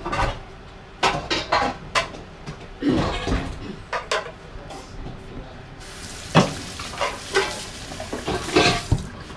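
Pots, dishes and utensils clattering and knocking, a string of sharp irregular knocks. About six seconds in a steady hiss comes in under them.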